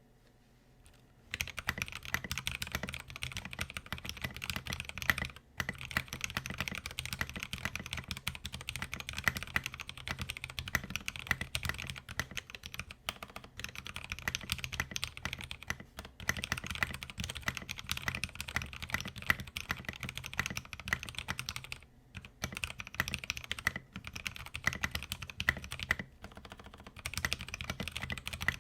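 Fast continuous typing on an LTC Nimbleback 65% mechanical keyboard with factory-lubed Gateron Cap Milky Yellow linear switches and thin Tai-Hao Sakura keycaps, a dense run of keystroke clicks with a few brief pauses. The typing starts about a second in.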